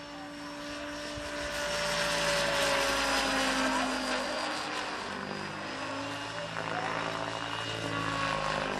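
Diabolo 700 radio-controlled helicopter in flight: a steady whine of its rotor drive and blades that grows louder over the first few seconds, its pitch sliding slightly lower as it manoeuvres.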